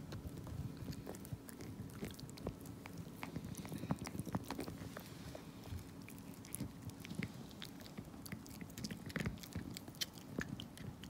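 A small dog gnawing on a chew stick: irregular wet bites and crunching clicks, with a steady low hum underneath.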